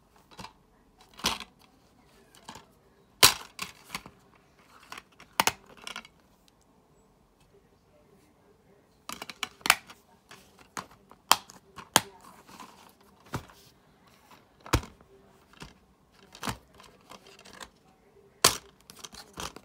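Plastic DVD case being handled, opened and shut: irregular sharp clicks and snaps of the case's hinge and latch, with softer rubbing between them and a quiet pause from about six to nine seconds in.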